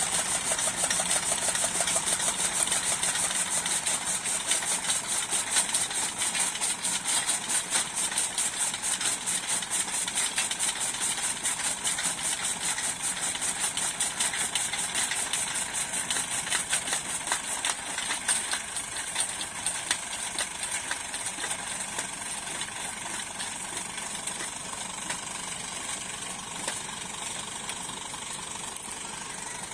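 Massey Ferguson 240 tractor's three-cylinder diesel engine running steadily, driving a chaff cutter through a long power take-off shaft while green fodder is fed in and chopped. The steady rapid beat eases off and grows somewhat quieter in the second half.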